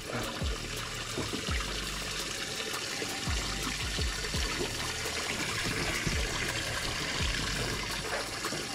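Water trickling and splashing around a small boat, a steady noisy wash with scattered soft low knocks.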